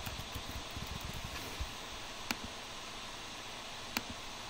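Computer keyboard keys clicking a few separate times, the clearest just past two seconds in and near the end, over a steady low hiss.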